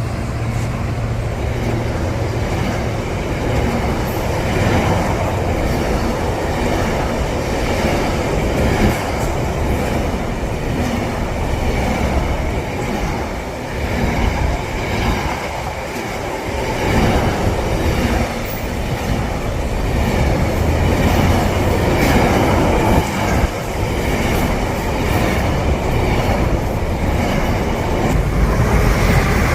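A train running along the track, with steady noise of wheels on rail.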